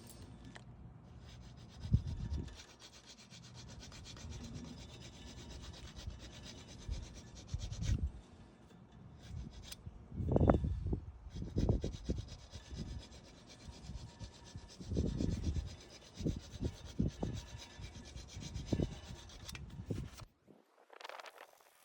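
Close-up hand work: rubbing and scraping with scattered dull knocks.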